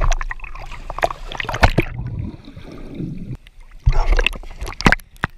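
A large dog jumps into a swimming pool with a heavy splash, then water sloshes and gurgles against a camera sitting at the waterline. There are further sharp splashes about four and five seconds in.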